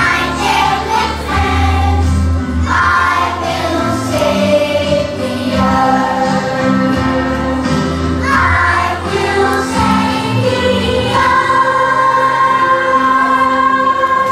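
A group of young children singing a song together in unison, holding the last note for about three seconds near the end.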